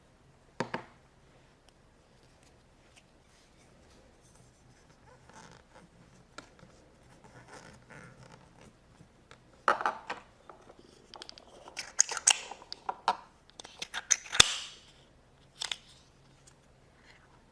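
Plastic Play-Doh tools clicking and scraping against modelling dough as it is handled. Scattered clicks and short scrapes, busiest in the second half.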